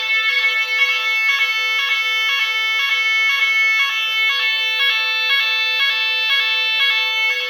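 Nugelec fire alarm sirens sounding the general-evacuation signal during a test: a loud, continuous alternating two-tone pattern repeating about twice a second, over a steady high tone.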